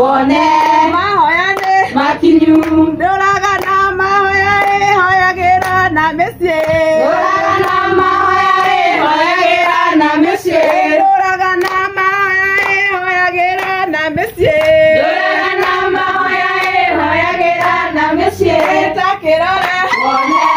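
A group of women singing a song together, with hand claps.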